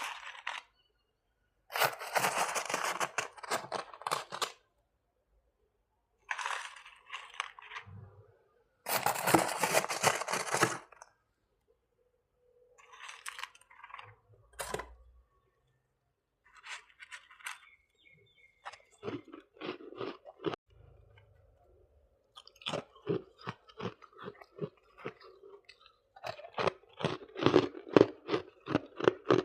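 Close-miked crunching of soft white freezer frost being bitten and chewed: several loud, crackly crunching bites in the first half, then quick, regular chewing crunches, about two or three a second, in the last third.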